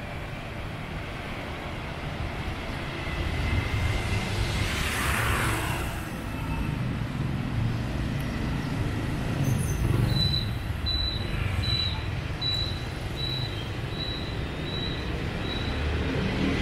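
Street traffic heard from a moving motorbike: a steady low engine and road rumble, with a vehicle passing about four to six seconds in. From about ten seconds in, a high electronic beep repeats roughly every three-quarters of a second, eight times.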